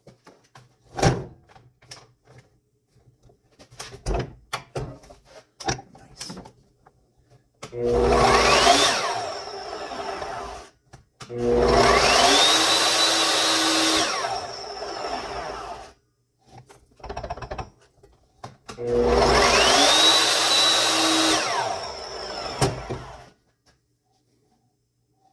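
Evolution metal-cutting chop saw motor switched on three times with no cut: each time it spins up with a rising whine to a steady high pitch, runs for a few seconds, and winds down when released. A few handling clicks and knocks come before the first run.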